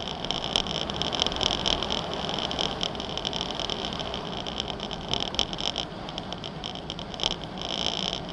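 Off-road 4x4 driving slowly on a rough mountain track: engine and tyre noise with scattered knocks and bumps. A steady high-pitched buzzing that pulses rapidly runs over it, dipping briefly near the end.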